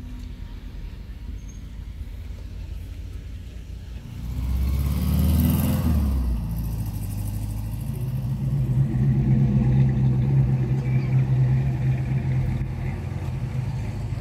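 Cars driving past on the street. One goes by about four seconds in, its engine note dropping in pitch as it passes, then another engine runs steadily and louder for several seconds near the end.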